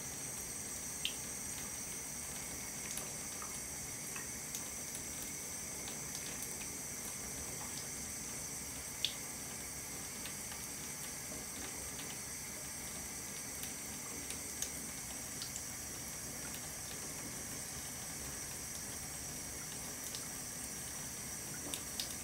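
Thin stream of water running from a bathtub spout into the tub, a steady hiss, broken by a few short sharp splashes and ticks as a cat's paw bats at the stream; the loudest comes about nine seconds in.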